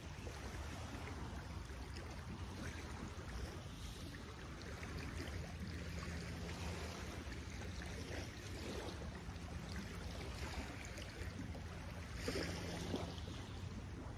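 Small lake waves lapping on a sandy, stony shore, an even wash of water, with a faint steady low hum under it.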